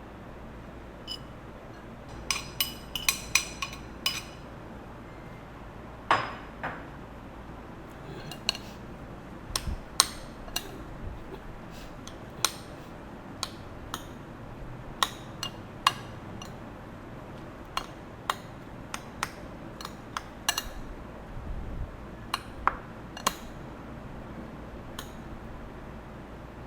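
Irregular clinks and taps of kitchen utensils against dishes and glassware, a quick cluster of ringing clinks a couple of seconds in, then scattered single taps.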